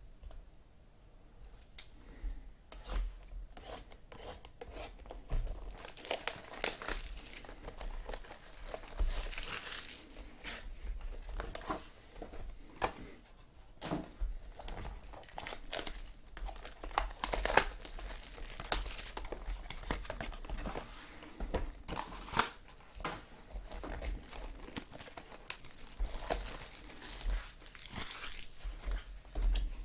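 Baseball card packaging being torn open and crinkled by hand: many irregular short tearing and crinkling rustles.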